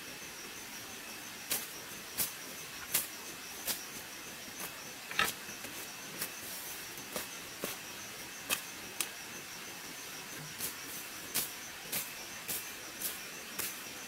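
Steady high chirring of insects, with a run of sharp snaps and clicks starting about a second and a half in and coming irregularly, one or two a second, as plant stems are pulled and broken by hand.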